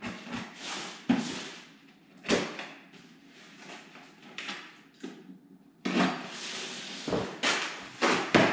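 Cardboard boxes being handled as an inner box of a Funko Pop! case is opened: rustling and scraping of cardboard with a few sharp knocks, about a second in, just after two seconds and near the end, and a longer stretch of scraping from about six seconds.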